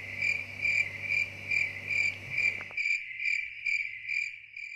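A cricket chirping in regular pulses, about two or three chirps a second. A faint low hum beneath it cuts out partway through.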